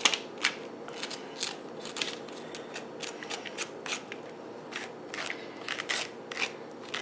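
Metal spoon scraping seeds and stringy pulp out of a raw spaghetti squash half: a run of short, irregular scrapes, several a second.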